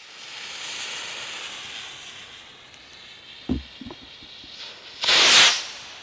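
Winda Ghost Star firework rocket launching with a hiss that fades as it climbs. A dull pop comes about three and a half seconds in, and a louder, sharp hissing burst about five seconds in.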